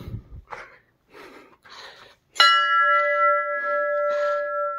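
Hard, quick breathing, then a large temple bell struck once about two and a half seconds in. It rings on in several steady tones, with a low hum underneath, while the breathing carries on over it.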